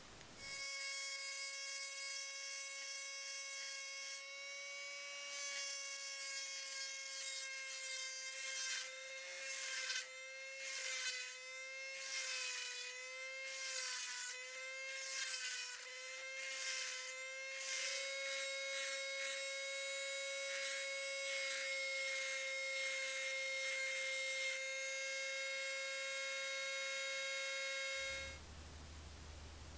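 Handheld rotary tool with a sanding drum running with a steady high whine. Between about 9 and 18 seconds it is pressed against the brass lure blank: the pitch wavers and dips under the load and a grinding rasp joins in. It then runs freely again and stops abruptly near the end.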